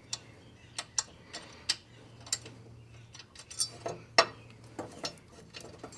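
Irregular small metal clicks and taps as a steel exhaust tip and its bolt are handled and fitted to the muffler outlet, over a faint low hum.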